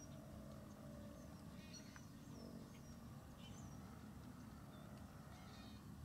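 Faint outdoor ambience: scattered short, high bird chirps and calls, each brief with a quick pitch sweep, over a steady low rumble of wind.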